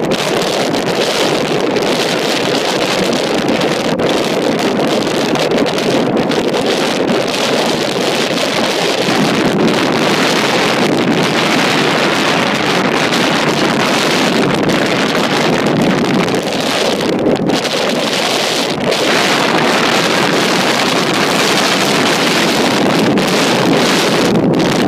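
Steady rush of wind buffeting the microphone at the side window of an off-road vehicle driving across desert sand, with the vehicle's running noise underneath.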